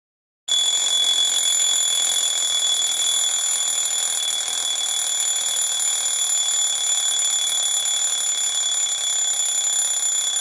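Alarm clock ringing: one continuous, high-pitched ring that starts about half a second in and cuts off suddenly near the end.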